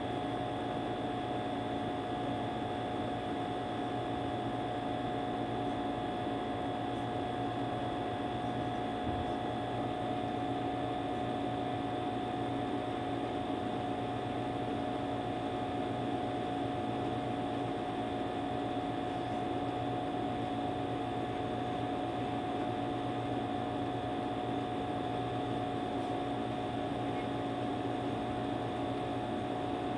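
Steady background hum with a faint hiss, several fixed tones over an even noise, as from an electrical appliance or motor running in the room.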